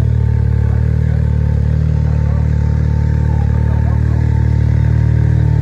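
Can-Am Maverick X3 side-by-side engine running steadily at an even, unchanging low pitch.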